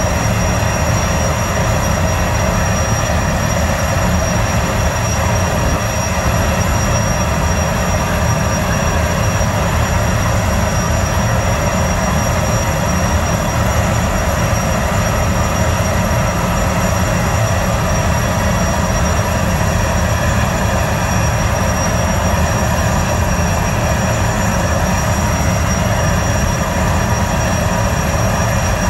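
Gas turbines of a Boeing 929 Jetfoil running steadily at the quay: a constant high whine over a low rumble.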